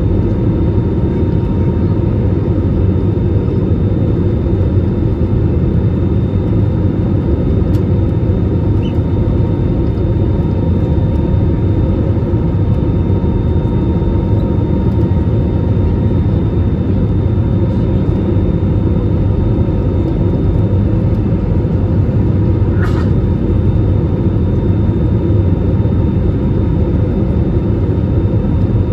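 Steady low rumble of a jet airliner's engines and airflow heard inside the cabin, with a faint steady whine on top. Two faint clicks come about a third of the way in and again near the end.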